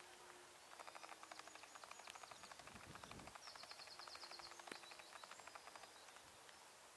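Faint bird song: a long run of rapid, evenly repeated chirps with a short higher trill in the middle.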